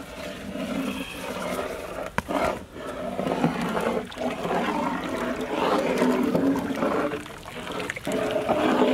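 Thin tamarind curry boiling in a large aluminium pot, sloshing and bubbling as it is stirred with a steel ladle.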